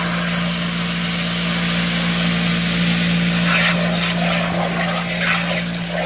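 Garden hose spray nozzle spraying water into the plastic wash tub of a portable washing machine, a steady hiss of spray hitting the water, over a steady low hum.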